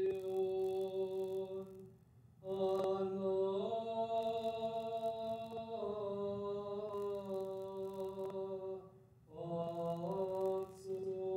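A man's voice chanting an unaccompanied Greek Orthodox funeral hymn: long held notes that step up and down in pitch, sung in three phrases with short breaths about two and nine seconds in.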